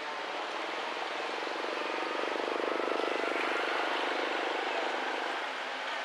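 Drone of a passing engine, rising to its loudest about halfway through and then fading.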